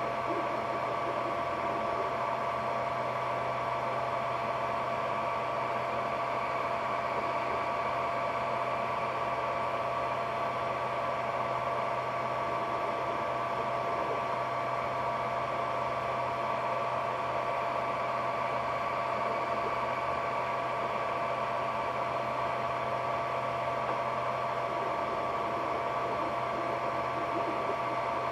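Ender 3D printer running, a steady whir of cooling fans with a constant high whine on two pitches and a low hum beneath.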